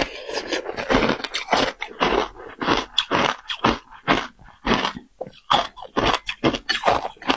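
Crunching of frozen shaved ice topped with passion fruit pulp as it is bitten and chewed close to a clip-on microphone: a quick uneven run of crisp crunches, about two or three a second.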